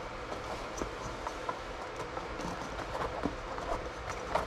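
Hands working a mountain-bike tire's bead over the rim of a tubeless-ready wheel: scattered light, irregular clicks and knocks of rubber and rim, with a steady background hum.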